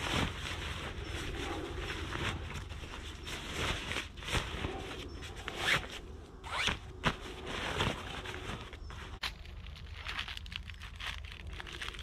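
A series of short, irregular rasping scrapes, the strongest a few seconds in, over a faint low background hum.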